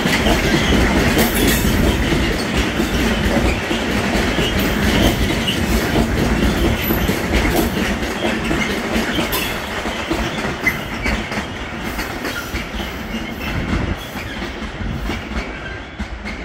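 Freight train of open-top gondola wagons passing close, wheels clattering over the rail joints, the sound fading as the last wagons pull away near the end.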